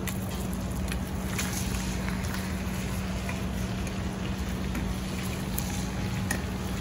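New York strip steak frying in foaming browning butter in a stainless steel pan over a high gas flame: a steady sizzle with scattered pops and a few clicks of metal tongs against the pan, over a constant low hum.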